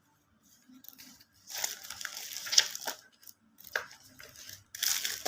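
Plastic packaging crinkling and rustling as it is handled and torn open, in several irregular bursts.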